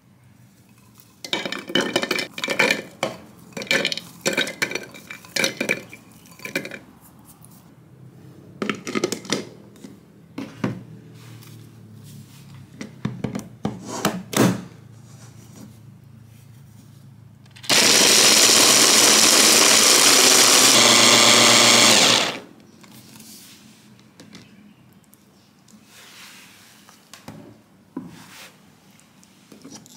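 Hand blender's mini chopper attachment running in one steady burst of about four and a half seconds, grinding walnuts to fine crumbs; this is the loudest sound and it stops suddenly. Before it, walnuts clatter into the plastic chopper bowl, and the lid and motor unit click into place.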